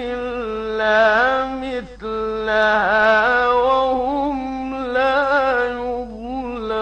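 A man's voice in melodic, mujawwad-style Quran recitation: long held notes with wavering, ornamented pitch. The phrase breaks off briefly about two seconds in, then goes on.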